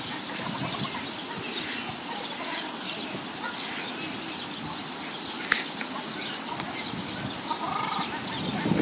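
Outdoor background of many small birds chirping faintly, with one sharp tick about halfway through. Near the end a goose gives a few short soft calls.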